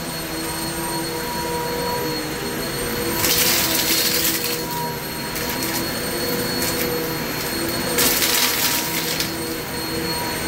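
Kenmore upright vacuum cleaner running steadily with a motor whine as it picks up wood chips from carpet. Two louder stretches of rushing hiss come about three seconds in and again about eight seconds in.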